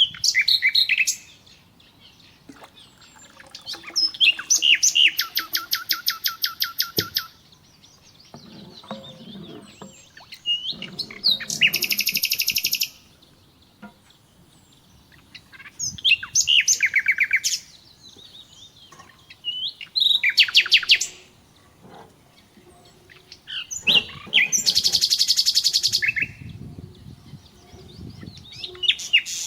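A songbird singing in repeated bursts of rapid trilled notes, each lasting one to two seconds, about every four seconds.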